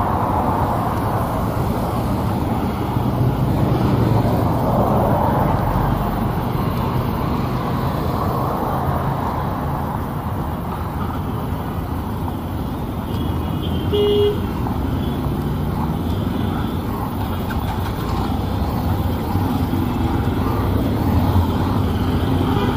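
Steady road traffic noise, with a short car horn beep about fourteen seconds in.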